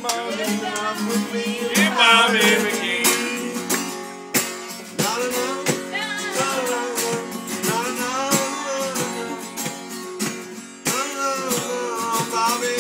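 A song playing: strummed acoustic guitar with a singing voice.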